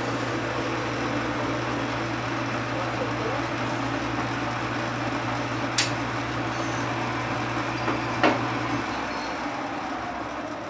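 Clausing metal lathe running under its electric motor, a steady hum with gear and spindle noise, and two sharp clicks from the controls. About nine seconds in the motor hum cuts out and the running noise fades as the lathe winds down.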